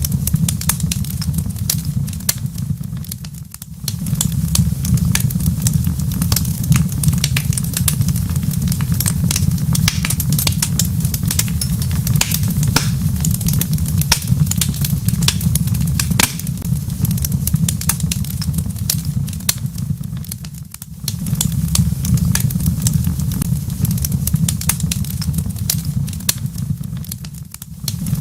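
Wood fire crackling in a fireplace: dense, irregular pops and snaps over a steady low rumble. The sound briefly dips and comes back three times.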